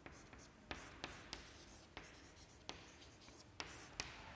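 Chalk writing on a blackboard: faint scratching with about eight sharp taps as an arrow and a word are chalked.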